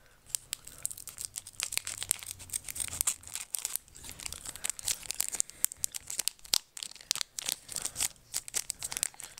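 A Pokémon card booster pack's foil wrapper being torn open and crinkled: a dense, irregular run of sharp crackles and small rips.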